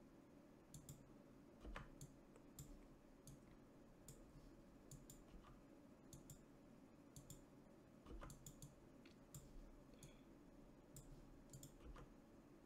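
Faint, irregular clicking of a computer mouse, a few clicks a second at times, with a couple of soft low knocks, over quiet room tone.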